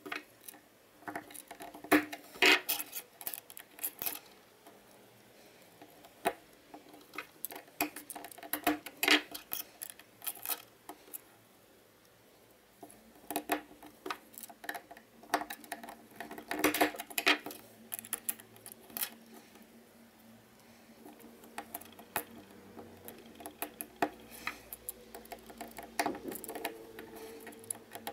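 Irregular sharp clicks and clacks of small magnets and 3D-printed plastic parts being handled on a tabletop and pressed into a plastic hexagonal base with a screwdriver.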